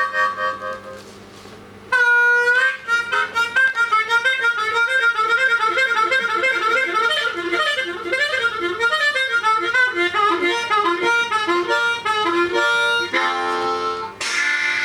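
Solo harmonica playing a train imitation: a loud held chord about two seconds in, then fast, evenly repeated chugging chords like wheels on rails, and long held chords near the end.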